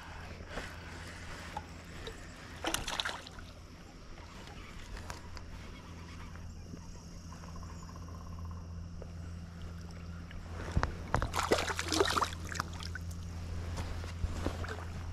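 A hooked smallmouth bass splashing at the surface as it is played in on the line: a brief splash about three seconds in and a louder run of splashing around eleven to twelve seconds, over a steady low hum.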